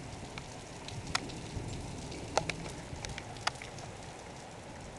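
Heavy thunderstorm rain falling steadily, with a few sharp ticks of single drops striking a hard surface close by.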